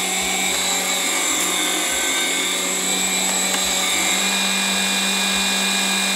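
Electric stand mixer's meat-grinder attachment running at a steady pitch, its motor humming as it minces raw chicken.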